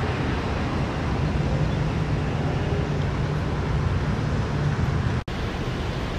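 Steady road-traffic and vehicle-engine noise with a low hum. The sound cuts out for an instant about five seconds in.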